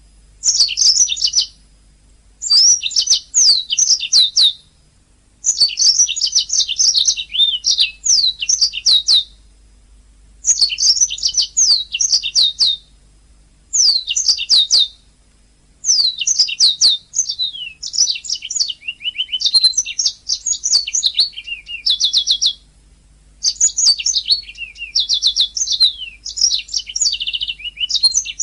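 Domestic canary singing in phrases a few seconds long, separated by short pauses: rapid high sweeping notes and fast rattling trills.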